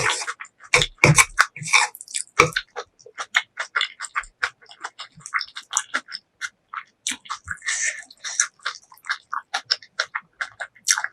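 Close-miked eating sounds: a person chewing food with many short, irregular wet clicks and crunches, a few heavier bites in the first couple of seconds, and a longer slurp-like rush around the middle.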